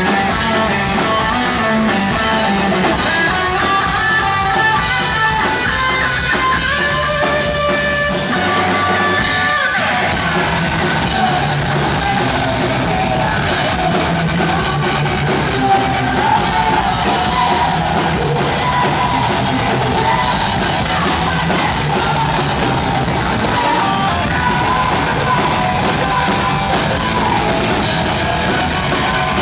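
Heavy metal band playing live and loud, with guitars and drums. A melodic guitar line leads at first, and about ten seconds in the music changes to a denser full-band passage.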